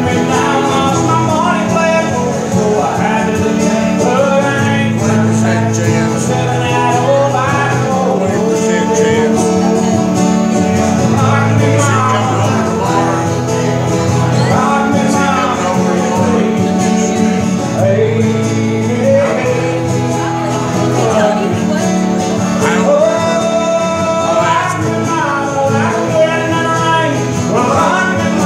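Live country song on a strummed acoustic guitar, with singing over it.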